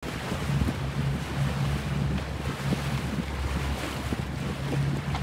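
Wind buffeting the microphone over lapping lake water, with a low hum that comes and goes underneath.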